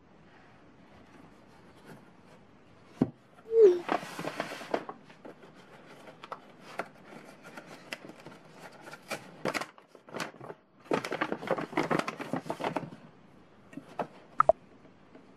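Paper gift bag and its tissue paper rustling and crinkling in bursts as the bag is opened and unpacked, with a few sharp clicks of handling. A short rising blip sounds about three and a half seconds in.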